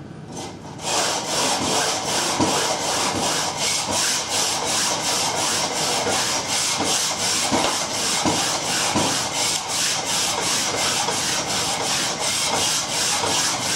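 Coarse side of a sharpening stone rubbed back and forth along speed skate blades held in a jig, a steady rasp in quick even strokes of about three a second, starting about a second in.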